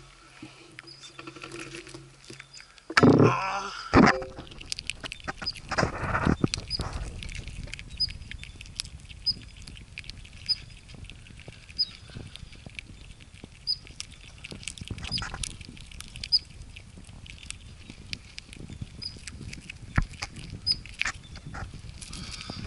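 Columbian ground squirrels at a ground-level camera: quick scratching, pattering and clicking as they feed and brush against it, with two loud knocks about three and four seconds in.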